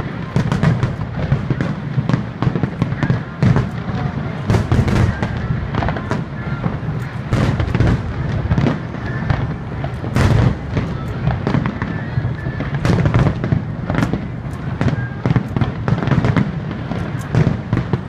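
Aerial fireworks bursting in a dense barrage: sharp bangs several times a second over a continuous low rumble.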